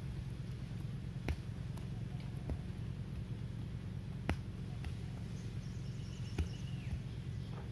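Field ambience: a steady low rumble, with three sharp clicks about a second in, past four seconds and past six seconds, and a short thin whistled call that holds and then falls near the end.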